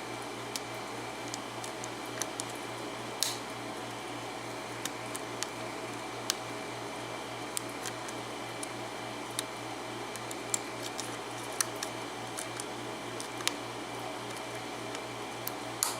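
Small, sharp, irregular clicks of a hook pick working the pin stacks of an Abus 72/40 six-pin padlock under a tension wrench, about one or two a second, over a steady low electrical hum.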